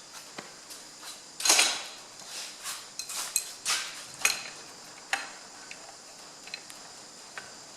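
Irregular metal clicks, clinks and a few short scrapes of hand work on a Perkins tractor engine's connecting-rod big-end cap and its nuts; the loudest scrape comes about a second and a half in.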